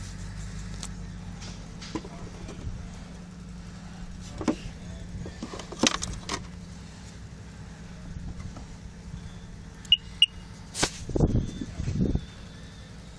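Handling noises on a Sea-Doo RXP personal watercraft: sharp clicks and knocks, the loudest about halfway through as the front storage lid is lifted, over a steady low hum. Near the end come two short high electronic beeps, then a few low knocks.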